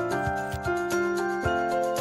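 Background music: a light melody of short notes over a steady beat.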